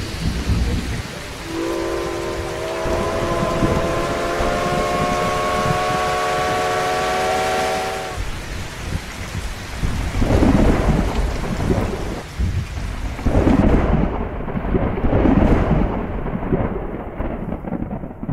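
Steam locomotive whistle blowing one long chord of several tones, held for about six seconds, over a steady hiss of rain. From about ten seconds in, a series of heavy rumbling storm crashes.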